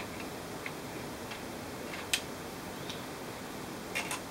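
A few light clicks and taps as the laptop's cooling fan and motherboard are handled, the sharpest about two seconds in and two close together near the end, over a steady hiss.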